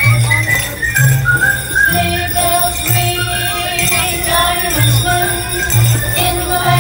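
Small handheld sleigh bells jingling as passengers shake them, over music with a steady bass beat about once a second.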